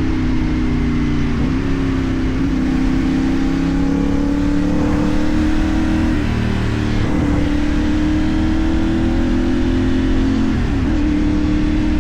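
CFMoto 450NK parallel-twin engine through a LeoVince aftermarket exhaust, pulling under load, its pitch climbing slowly and then dropping at a shift about three times, typical of upshifting while riding.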